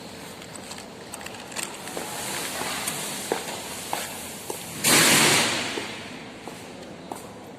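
Scattered small clicks and taps of grinder parts being handled during a carbon-brush change, then a sudden loud hiss about five seconds in that fades away over about a second.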